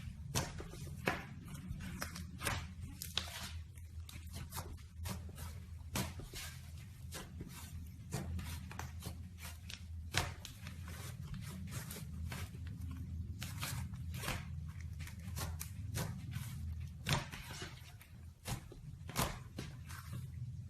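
Slime being squished and pressed by hand, giving many quick, irregular wet clicks and pops over a steady low hum.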